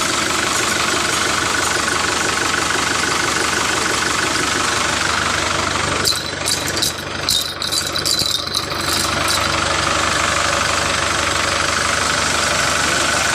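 Engine running steadily at idle. About six seconds in it turns choppy and uneven for a few seconds, then settles back to a steady run.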